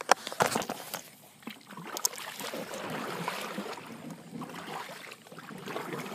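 Sharp knocks and clatter of handling inside a fishing kayak, with plastic gear bags rustling, in the first couple of seconds. A steady rustling swish follows as the kayak moves.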